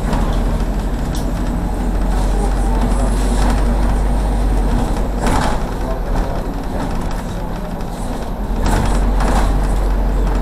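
Ride inside a MAZ city bus with a combustion engine under way: a steady low engine drone with road noise, and short rushing noises about five seconds in and again near nine seconds.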